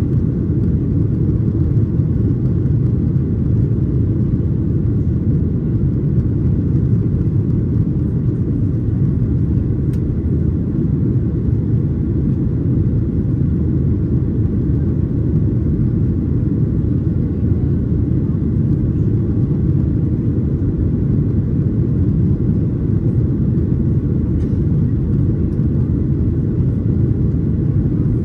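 Steady, loud low rumble inside the cabin of a Boeing 737-800: CFM56 jet engine and airframe noise as heard from a passenger window seat, holding even with no rise or fall.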